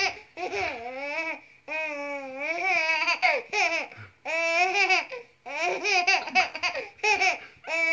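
A baby laughing and babbling in a string of high-pitched, gliding squeals and coos, in short bursts separated by brief pauses.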